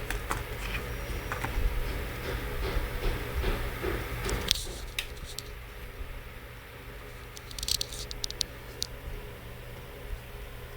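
Small clicks, taps and scratching of hands handling small laptop parts during a repair, with a quick run of sharp ticks about three quarters of the way through, over a steady low hum.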